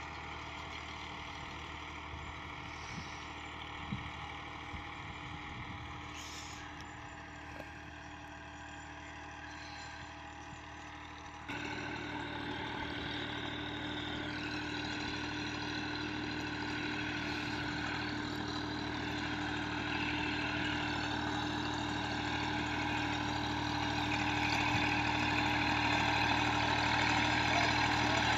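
Massey Ferguson 260 tractor's diesel engine running steadily under load while pulling a disc harrow. It jumps louder about eleven seconds in, then grows steadily louder as the tractor comes closer.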